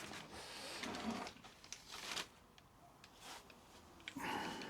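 Faint handling noises: light rustling and a few soft knocks as things are moved about.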